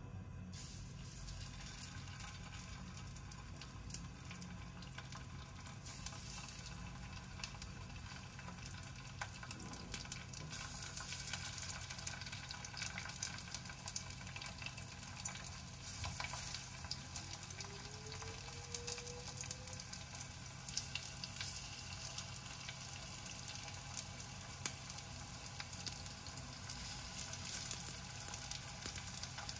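Flour-coated fish slices sizzling in hot oil in a small saucepan, with many scattered pops and crackles. The sizzle starts about half a second in as the first slice is lowered into the oil.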